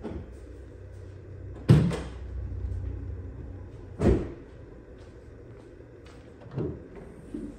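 A car bonnet being unlatched and lifted open: a loud clunk about two seconds in, then another about four seconds in. Lighter knocks follow near the end as things are handled in the engine bay.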